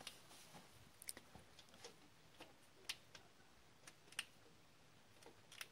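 Near silence broken by a handful of faint, irregular metallic clicks: fingers working loose the bolts on a metal bracket in a cramped space.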